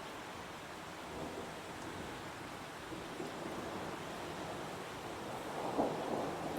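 Heavy rain falling steadily as an even hiss, with a brief louder swell near the end.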